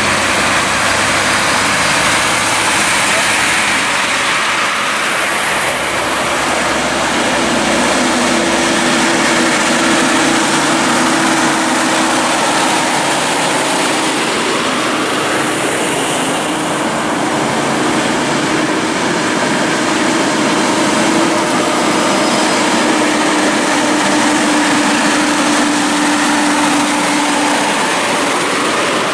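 A line of heavy trucks and road trains passing close by, a steady loud mix of diesel engines and tyre noise with a low engine drone.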